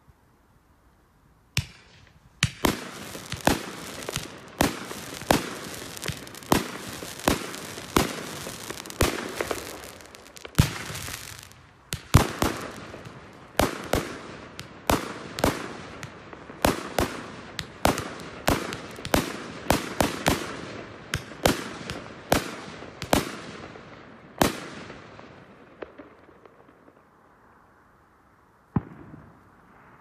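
Fireworks going off in a rapid barrage of sharp bangs, about two a second, over continuous crackling. The barrage begins about two seconds in and dies away near the end, with one last single bang just before the close.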